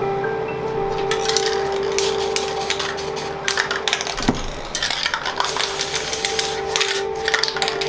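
Aerosol spray-paint can hissing in a series of short bursts and one longer spray, with a sharp knock about four seconds in.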